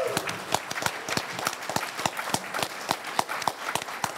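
Audience applauding, with individual hand claps standing out in an irregular patter.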